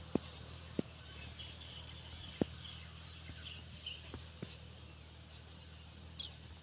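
Faint, steady low drone of a distant John Deere tractor's diesel engine plowing, with birds chirping and a few sharp clicks.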